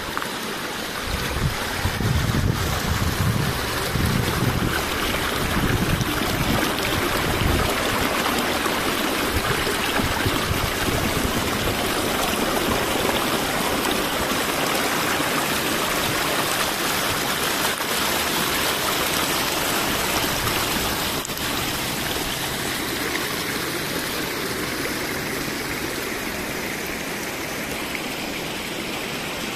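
A small stream of water running and splashing over rocks and grass, a steady rushing sound. Low rumbles come and go during the first several seconds.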